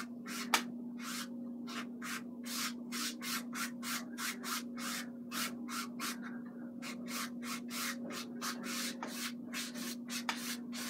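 Paintbrush scrubbing oil paint onto a canvas: a quick series of short strokes, about three a second, over a steady low hum. A single sharp click about half a second in.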